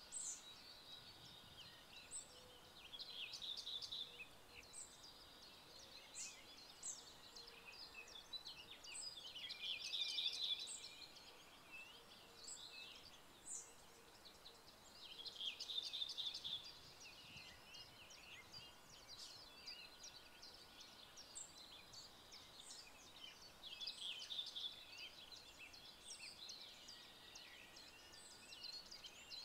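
Several songbirds singing: overlapping chirps and trills that swell and fade in bursts every few seconds, over a faint steady outdoor hush.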